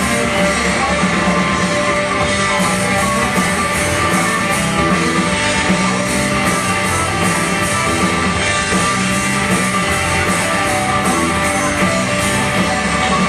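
Live rock band playing an instrumental passage: electric guitars and bass over a steady drum beat, loud and continuous.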